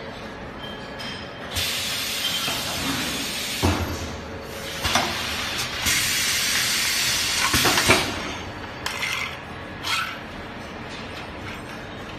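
Baking-paper plate forming press cycling: compressed air hisses twice for about two seconds each, with metal clanks as the press and its mould move, then a few short knocks and puffs near the end.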